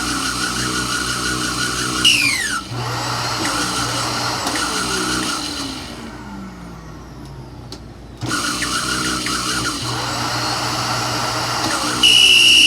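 Hoover Savvy bagless upright vacuum cleaner's motors switched on and off several times, each switch-off a falling whine as the motor spins down. Near the end it comes on with a louder, higher whine as it tries to run suction and brush roll together, which is a little too loud.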